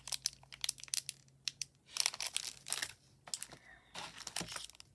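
Plastic packaging and tissue paper crinkling and rustling as hands handle them, in short, irregular crackles.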